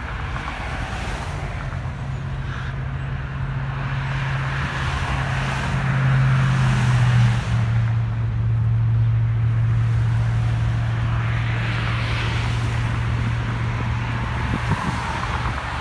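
Highway traffic passing: tyre hiss from cars, and a steady engine hum from a passing vehicle that drops in pitch as it goes by, about seven seconds in. A brief click comes near the end.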